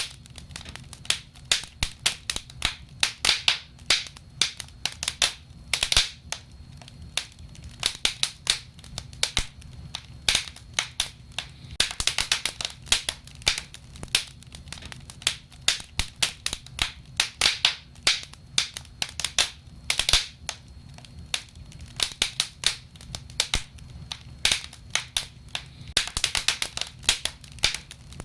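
Wood fire in a fireplace crackling and snapping: many sharp irregular pops, some in quick clusters, over a low steady hiss of burning logs.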